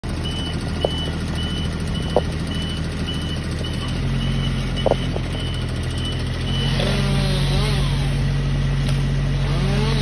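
Aerial boom lift's engine running under a steady motion alarm beeping just under twice a second; the beeping stops about six and a half seconds in as the engine note rises, and a whine then rises and falls twice as the boom moves. A few short knocks in the first five seconds.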